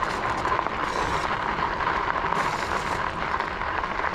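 Nakto Folding OX electric bike being ridden on a trail: steady rolling noise from the tyres and wind on the microphone, with a steady whine running underneath.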